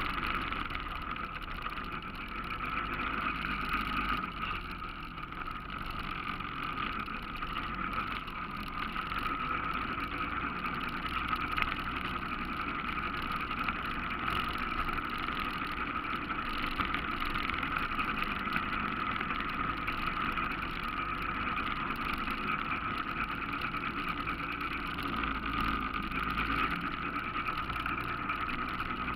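ATV engine running steadily while the machine rides along, a continuous drone with little change in pitch.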